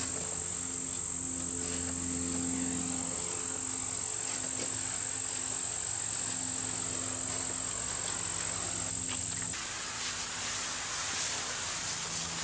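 Insects trilling in the woods: a steady high-pitched drone that cuts out about nine and a half seconds in, leaving a soft hiss.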